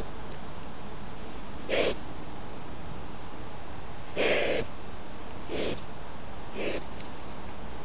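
Wild boar making four short, breathy calls at uneven intervals, the loudest and longest about four seconds in, over a steady hiss.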